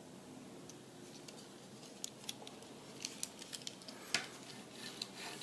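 Light clicks and taps of a small die-cast metal model car being handled, then a sharper knock about four seconds in as it is set down on the table.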